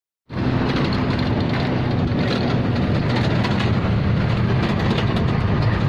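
Truck engine running and road noise heard from inside the cab while driving: a steady low drone with light rattling, cutting in suddenly a moment in.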